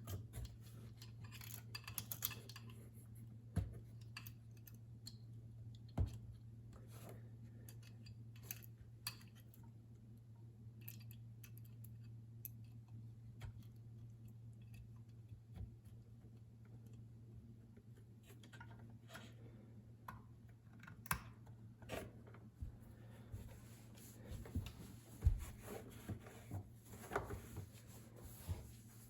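Small metal parts and hand tools being handled: scattered clicks, clinks and light knocks, more frequent in the second half, over a steady low hum.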